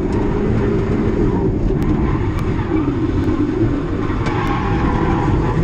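Turbocharged Mazda MX-5's engine running steadily under load while drifting, heard from inside the cabin, its pitch holding fairly level with small rises and dips.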